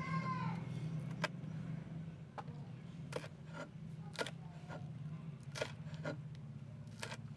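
A large kitchen knife slicing fresh red chilies on a wooden chopping board: irregular sharp taps of the blade striking the board, roughly one a second.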